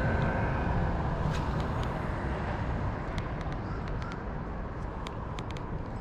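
Steady rumble of road traffic, slowly fading, with a few faint clicks.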